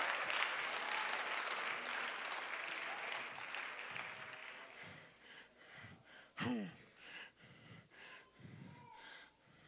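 Congregation applauding, the clapping fading away over the first five seconds or so. About six and a half seconds in, a single short voice calls out.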